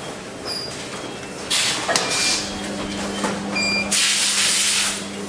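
Electronics factory-floor ambience around a battery testing line: short, high electronic beeps recur every second or so, a steady low hum comes in about two seconds in, and two loud hisses break in, the longer one near the end.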